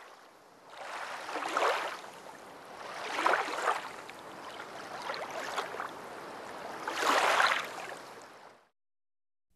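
Ocean waves washing in, a rushing sound that swells and falls back three times, then stops about a second before the end.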